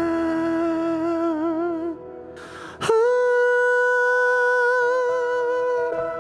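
Wordless, humming-like vocal pad from a custom Akai MPC 'Vox' preset, playing two long held notes. The first wavers near its end and stops about two seconds in; the second, higher note comes in about three seconds in and is held steady.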